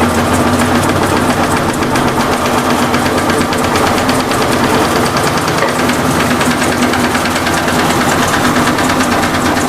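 Electrolux LT15F washing machine in its spin cycle, running with a fast, continuous rattling knock over a steady hum. The rattle comes from the rear suspension rod bouncing in its support cup, which the owner takes to be worn; foam tape in the cup has not cured it.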